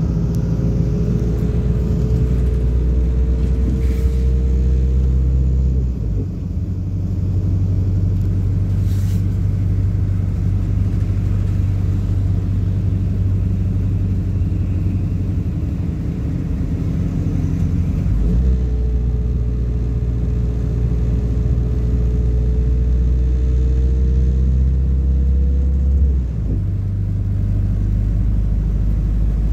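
MAZ-226.069 bus's engine and drivetrain heard from inside the cabin while driving: a steady low drone with a faint whine that rises slowly while the bus pulls. The whine and the engine note break off about 6 seconds in, pick up again about 18 seconds in, and drop off again near 26 seconds.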